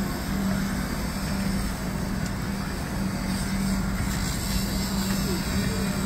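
Heavy crane truck's diesel engine running steadily, with a steady droning hum.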